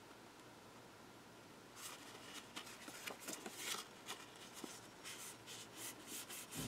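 Close-up paper and cardstock handling, quiet: after about two seconds of near silence, scattered rustles, light taps and short scrapes as paper pieces are moved and pressed down.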